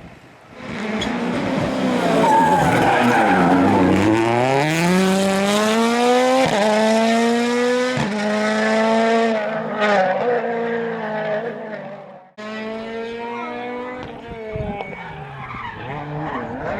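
Rally car engine working hard on a tarmac stage: revs dip low through a corner, then climb in pitch as it accelerates, with short breaks at each gear change, plus tyre noise. About twelve seconds in, the sound cuts off and resumes quieter with another stretch of engine running and gear changes.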